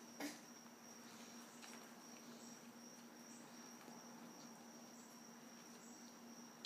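Near silence: room tone with a faint steady high-pitched whine and a low hum, and one sharp click just after the start.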